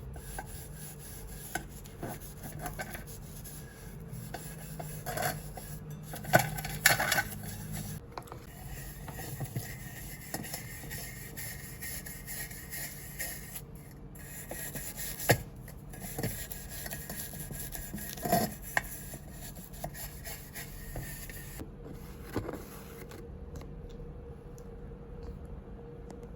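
Continuous scrubbing and rubbing on the brass samovar's surface during cleaning, broken by a few sharp knocks.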